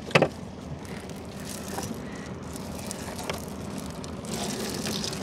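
Gill net being hauled by hand into a small boat: a sharp knock just after the start, then scattered light clicks and rattles over a steady low hum.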